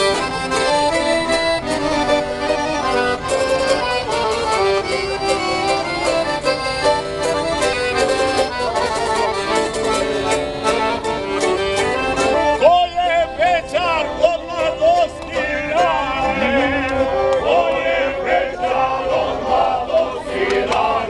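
Accordion playing a lively folk tune in chords. From a little past halfway, voices join in, singing with a strong wavering pitch over the accordion.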